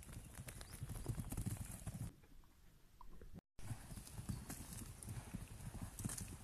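Hooves of Hereford cattle galloping over soft forest ground: a quick, irregular run of thuds. The sound cuts out for a split second about halfway through.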